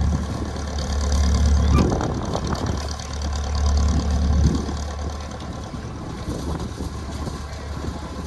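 An engine running with a steady low hum, which drops away about four and a half seconds in, among a few scattered knocks.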